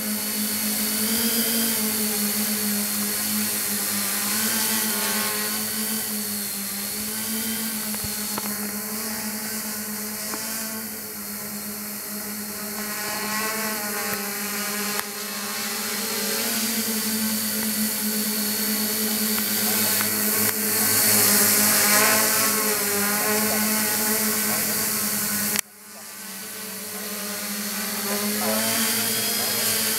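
Quadcopter with four RCMC 2826 brushless motors spinning Gemfan 9x4.7 propellers, hovering and manoeuvring: a steady buzzing drone whose pitch wavers up and down with throttle corrections. Near the end the sound drops out abruptly and builds back up.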